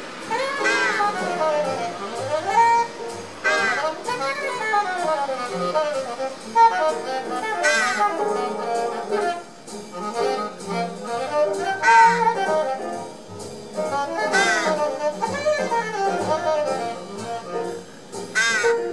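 Jazz music with saxophone and brass.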